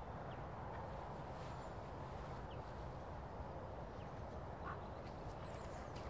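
A steady, even rush of outdoor background noise with a few faint, short high chirps from small birds.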